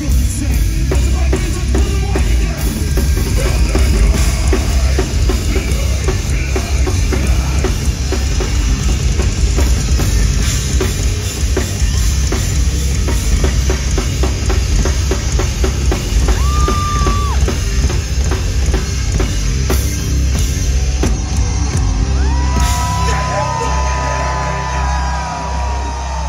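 Metal band playing live and loud over the venue's PA: dense drum-kit hits over heavy bass and distorted instruments. Held, bending high notes come in near the end.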